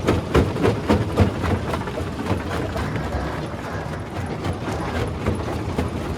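Rock crusher running with a steady low rumble and rapid, irregular knocking of stones being broken, the knocks densest during the first second or so.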